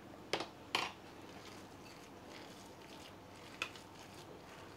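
Light clinks against a metal mixing bowl, twice within the first second and once more later, over faint rustling of a hand mixing a crumbly grated-egg and lentil batter.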